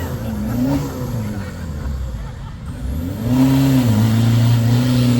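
Toyota Hilux off-road truck's engine revving, its pitch wavering at first, then climbing about three seconds in and held high and steady.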